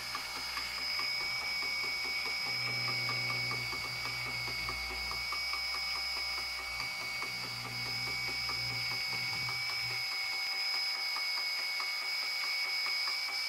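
Walking-cube robot's electric motor running under power: a steady high-pitched whine with a fast, even mechanical ticking. A low hum stops about ten seconds in.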